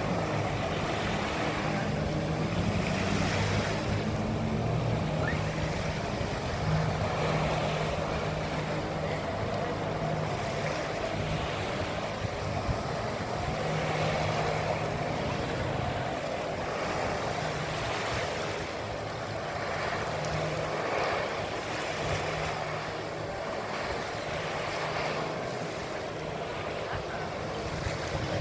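Jet ski engine running hard to power a flyboard, its note rising and falling with the throttle, over the steady rush of water jets and spray.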